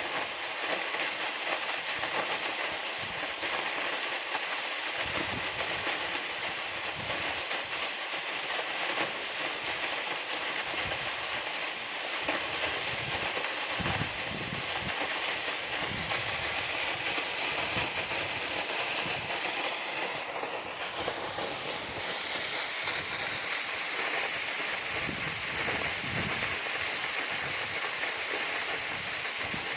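Waterfall rushing as a steady, even roar of falling water, with irregular low rumbling underneath.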